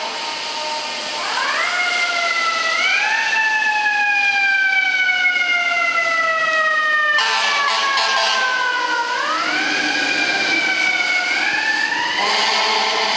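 Fire engine siren wailing. It rises quickly, falls away in a long slow glide, then winds up again twice near the end. A steady horn tone fades out in the first second.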